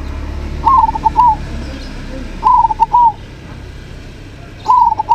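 Local-strain zebra dove (perkutut) singing its cooing song: three phrases about two seconds apart, each a quick stuttering run of notes ending in a longer coo. A low rumble fades away over the first couple of seconds.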